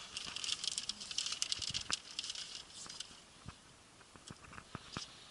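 Plastic zip ties being handled: a dense run of small clicks and crinkling rustle, thinning out after about three seconds to a few scattered sharp clicks.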